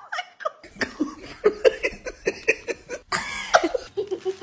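A person laughing in quick rhythmic bursts, about five a second, followed by a short brighter cry about three seconds in.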